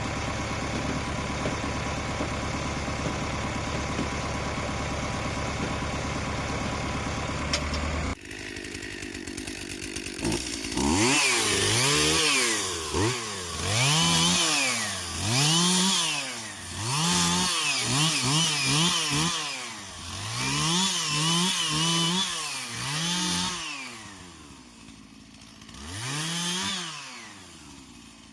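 Tractor diesel engine idling steadily for about eight seconds, then, after an abrupt cut, a two-stroke chainsaw revving up and back down again and again, roughly once a second, dropping lower near the end.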